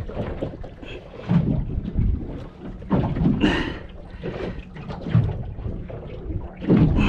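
Irregular rumbling and buffeting on a small fishing boat: wind on the microphone mixed with water slapping against the hull, coming in uneven gusts and knocks.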